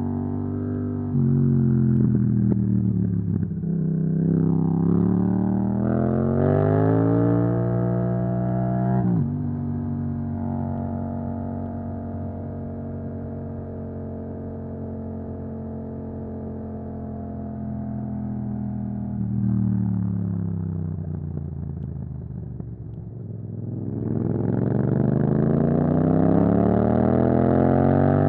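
Yamaha MT-07 parallel-twin motorcycle engine through an Akrapovic exhaust, riding in traffic. Its pitch falls as the bike slows, then climbs under acceleration and drops suddenly at a gear change about nine seconds in. It holds steady at a cruise, eases off, then climbs again hard under throttle near the end.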